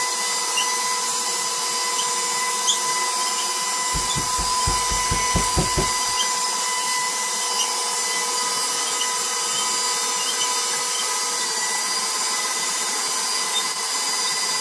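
KitchenAid stand mixer running its pasta roller attachment: a steady motor whine as a sheet of pasta dough is fed through the rollers. A short run of soft low thumps comes about four seconds in.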